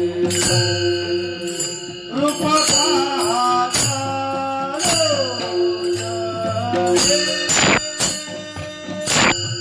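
Warkari devotional bhajan music: steady held drone notes under a voice sliding through the melody, with brass hand cymbals (taal) clashing and ringing a few times.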